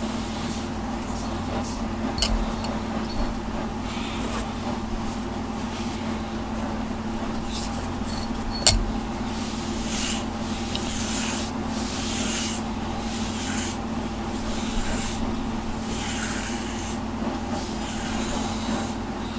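A pet brush stroking through a cat's coat several times, each stroke a short hiss, over a steady hum; a sharp click about nine seconds in.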